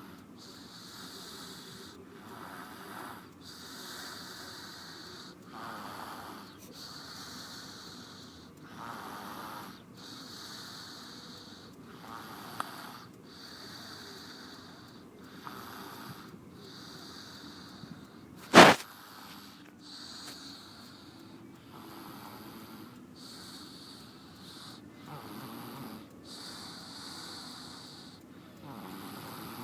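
A sleeping toddler snoring softly and wheezily, breathing in and out in a steady rhythm of roughly one breath every one and a half to two seconds. A single sharp click about two-thirds of the way through is louder than the snoring.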